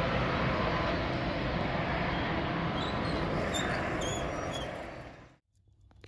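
Freight train wagons rolling along the track: a steady rumble and clatter of wheels on rails that fades as the train draws away, then cuts off abruptly about five seconds in. A few short high chirps sound over it shortly before the fade.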